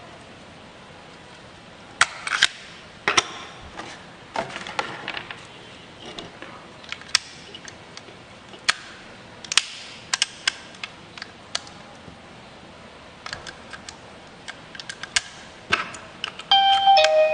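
Irregular clicks and knocks, then near the end an electronic chime of steady tones stepping down to a lower note from the eMastiff PIR welcome doorbell alarm.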